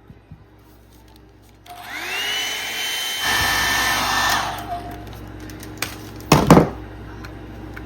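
Hand-held blow dryer switched on about two seconds in, its motor whine rising as it spins up. About a second later it steps up louder, then it is switched off and winds down. A couple of sharp, loud knocks follow near the end.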